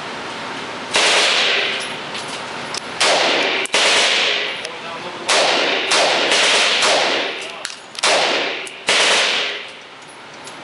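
5.56 mm M16 rifle firing single shots, about eight loud reports spaced irregularly a second or so apart, each followed by a long echo.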